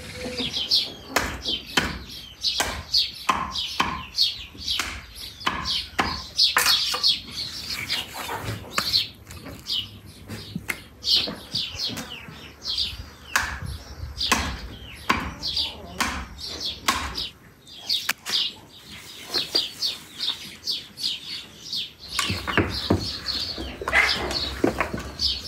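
Small birds chirping, over a run of sharp knocks.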